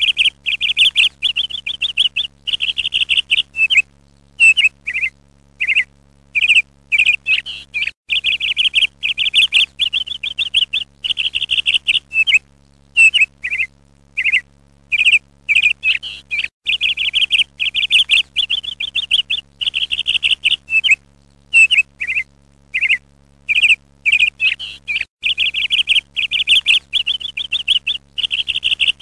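Songbird singing: rapid trilled phrases and short chirps broken by brief pauses, over a faint steady low hum. The same stretch of song repeats about every eight and a half seconds.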